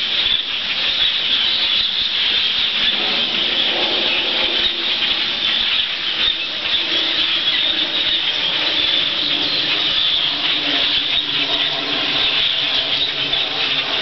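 A huge flock of birds passing overhead: a loud, steady din of countless overlapping calls and chirps.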